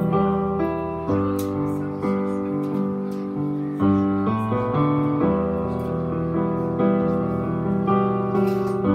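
Korg Kronos keyboard playing a piano sound: full, sustained chords, a new one struck about once a second.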